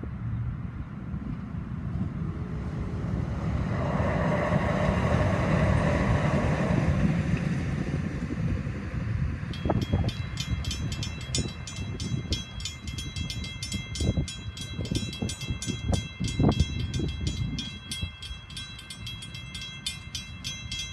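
A DART light rail train runs past, its rumble swelling and fading over the first several seconds. About ten seconds in, the crossing's electronic bells start a rapid repeating ring as the gates rise, over scattered low thumps.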